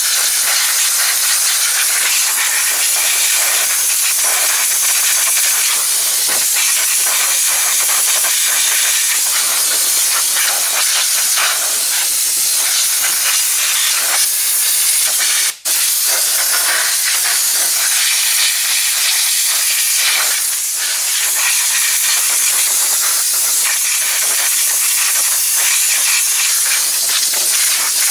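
Compressed-air blow gun blasting air into a gummed tape dispenser's solenoid area to clear out tape dust: a loud, steady hiss with a split-second break about halfway through.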